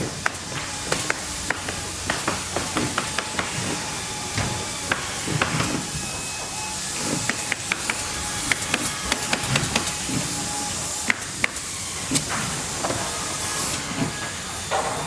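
Factory ambience: a steady hiss of running machinery with many irregular knocks and clicks over it, several a second at times.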